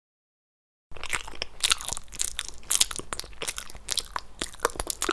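Rapid, irregular crunching clicks, like something being chewed, starting about a second in.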